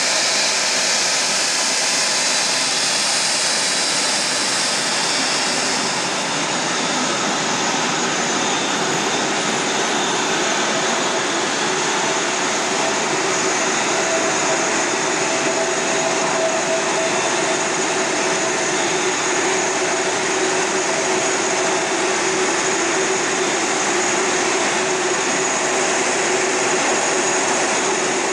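Korean Air Airbus A380's jet engines running at taxi power, a loud steady whine and rush of air. A bright high hiss eases after about six seconds, leaving a few steady whining tones.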